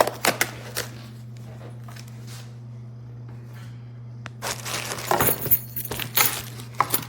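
Metal door-lock hardware clinking and its packaging rustling as the parts are handled: a few clicks at the start, then a burst of clinks and rustling about five seconds in.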